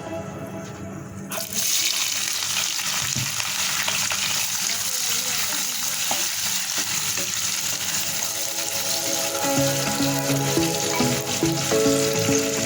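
Food frying in hot oil in a pan, a steady sizzle that starts suddenly about a second in. Background music plays faintly under it at the start and again near the end.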